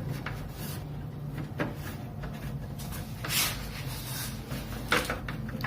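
Hand work on a car's headlight assembly: scattered light clicks and knocks of plastic and metal parts being handled and fitted, with a brief rubbing swish about three seconds in and a sharper click near the end.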